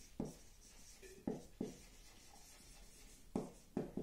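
Whiteboard marker writing on a whiteboard: about five short, faint strokes and taps as the letters are formed, over a light room hiss.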